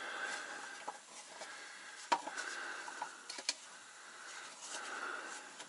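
Faint hiss of compressed air escaping from a truck's air system, swelling and fading, which the owner traces to a leak at the clutch air line. A few sharp clicks of parts being handled come through, one about two seconds in and another about three and a half seconds in.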